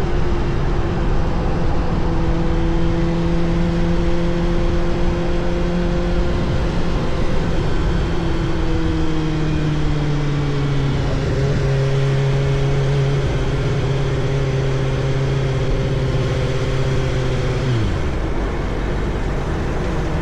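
2024 Kawasaki ZX-6R's 636 cc inline-four engine running at steady cruising revs under a constant rush of riding noise. The engine note eases lower about a third of the way in, holds, then drops away sharply near the end.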